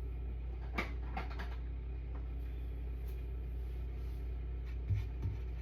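A few light clicks and knocks of things being handled at the cooktop, over a steady low hum: one sharp click about a second in, a couple of lighter clicks after it, and two soft thumps near the end.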